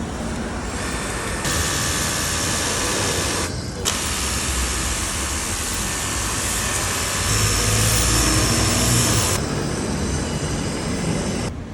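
Makita pressure washer running, its high-pressure water jet spraying with a steady hiss over the pump's hum. The hiss drops out briefly a little before four seconds in.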